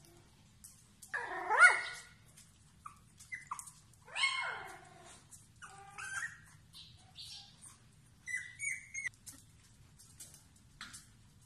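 Beagle puppies whining and yelping in a series of short, high-pitched cries that rise and fall in pitch. The loudest is a rising whine about one and a half seconds in. Small clicks sound between the cries.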